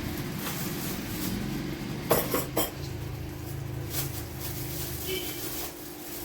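Unboxing of an electric hand blender: a few sharp clinks and knocks as its parts and packaging are handled, the loudest a quick cluster of three about two seconds in, over a steady low hum.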